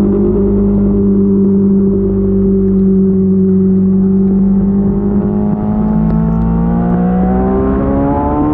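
Sport motorcycle engine running at steady high revs, its pitch easing slightly through the middle and climbing again near the end as it accelerates.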